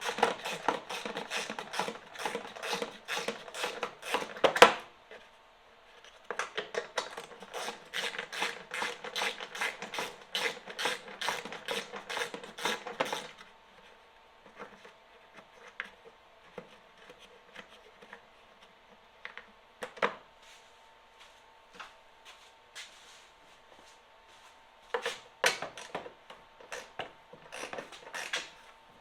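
Socket ratchet clicking rapidly in two long runs, one for each belt-cover bolt being backed out, then a few separate knocks and clinks of metal parts being handled.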